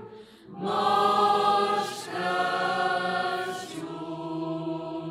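Women's choir singing a Romanian colind (Christmas carol) a cappella in long held notes: a brief breath pause about half a second in, then two phrases, and a lower note held from near the end.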